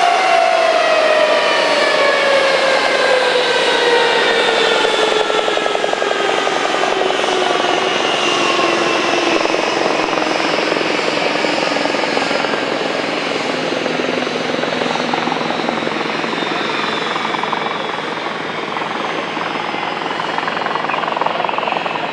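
Boeing B-52 Stratofortress jet engines spooling down after shutdown: several whines glide slowly downward in pitch under a loud rush that gradually fades.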